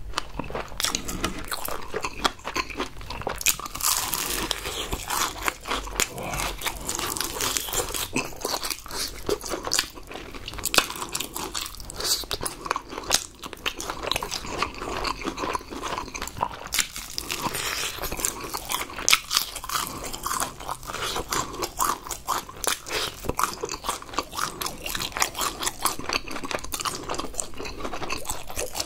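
Close-miked crunching and chewing of crispy battered fried chicken: a long, dense run of crackly bites as the coating breaks between the teeth.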